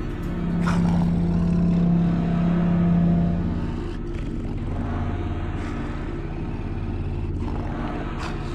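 Low, droning background music: a deep sustained note for about three seconds at the start over a steady low hum, with a couple of brief swishes.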